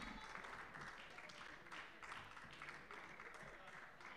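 Faint sports-hall background: scattered distant clapping over a low murmur of voices.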